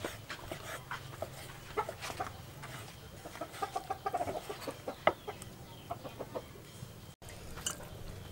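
A kitchen knife slicing raw chicken breast on a wooden chopping block, with repeated sharp taps of the blade on the wood. Chickens cluck in the background, most clearly around the middle.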